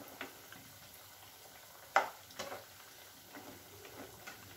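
Chhana-and-milk-powder sweets frying gently in refined oil over a low flame, a faint steady sizzle. A metal slotted spatula clicks against the pan a few times, the loudest click about two seconds in.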